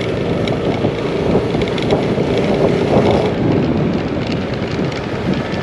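Yamaha Aerox 155 scooter engine running as the scooter is ridden, with wind noise on the microphone.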